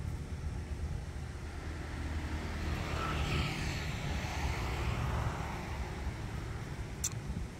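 A passing vehicle's noise swells and fades over a steady low rumble, loudest about three to four seconds in. A single sharp click comes near the end.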